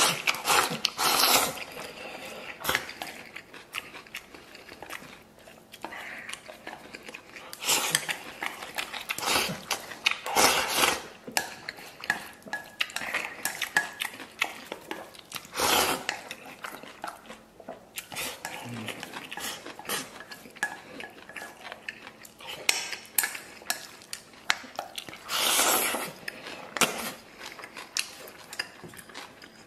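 Wooden chopsticks clicking and scraping against a stainless steel bowl as rice is shoveled into the mouth, with chewing in between. The clicks come thick and irregular, broken by several louder, noisier bursts lasting up to a second.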